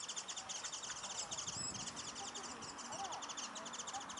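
Small songbirds twittering in a rapid, continuous high chatter, with one clear high whistled note about one and a half seconds in.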